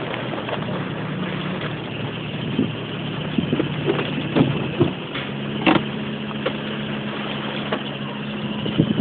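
A 4x4's engine running steadily while driving, its pitch shifting slightly about five seconds in, with scattered knocks and clatter.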